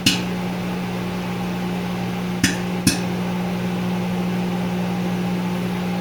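A 1,000-watt microwave oven hums steadily while popcorn kernels in a Rapid Brands microwave popcorn popper pop only now and then: once at the start, then twice close together about two and a half seconds later. The popping is relatively slow, a sign of the popper not performing well.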